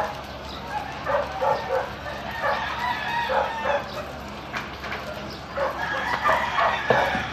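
Chickens clucking in short repeated calls, with a rooster crowing.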